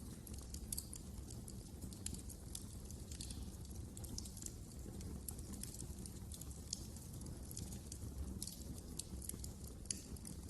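Wood fire crackling: frequent, irregular sharp snaps and pops over a low, steady rumble of burning, with one louder pop near the end.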